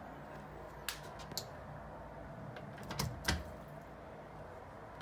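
A baby's hand knocking on a door: four light, irregular taps, the last two close together about three seconds in.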